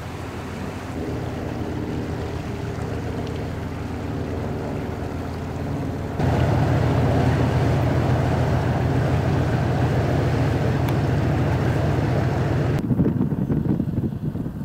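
Diesel engine of a passing inland cargo barge running, a steady low drone with a few held tones. About six seconds in it turns suddenly louder, with the stern and wheelhouse close by. Near the end a rougher, fluttering low rumble, wind on the microphone, takes over.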